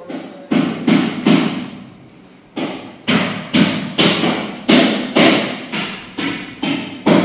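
Loud, repeated thumps, about two a second, with a short break about one and a half seconds in.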